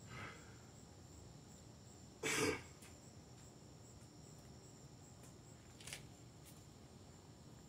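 A man's single short cough about two seconds in, over quiet room tone.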